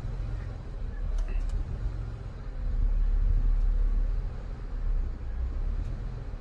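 2002 Ford Escape's 3.0 V6 engine idling roughly, its loudness swelling for a second or two and then dropping back. This is the hunting idle with RPMs constantly fluctuating that the owner is trying to diagnose.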